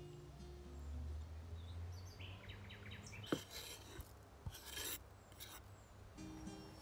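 A knife scraping grated lemon zest off a wooden cutting board into a glass bowl: a few short rasping scrapes with one sharp knock, while small birds chirp in the background.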